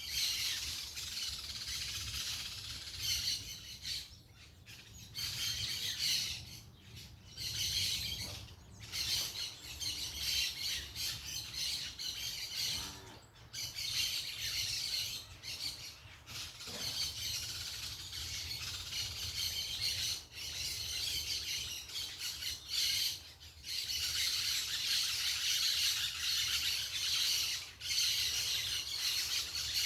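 A flock of parakeets chattering and squawking, in noisy bouts of a few seconds separated by brief lulls.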